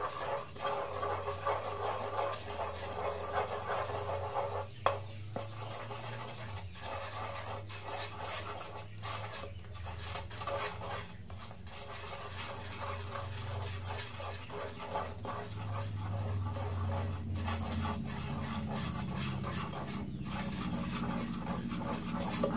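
A wooden spatula stirring and scraping through thick caramel and condensed milk in a nonstick pan, melting the caramelized sugar lumps into the milk, with many short scrapes and clicks. A steady low hum runs underneath.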